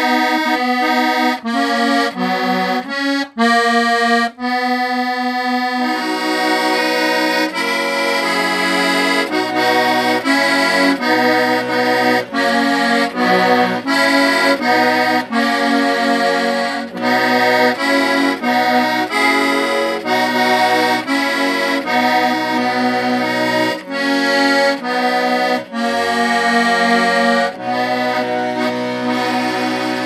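Accordion playing a tune: the melody alone at first, with low bass notes and chords coming in about six seconds in and continuing under it.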